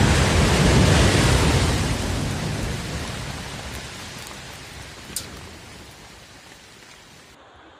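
Long rumble after a rock blast at road works, as rock and debris come down the slope, fading steadily over several seconds. A single sharp click comes about five seconds in.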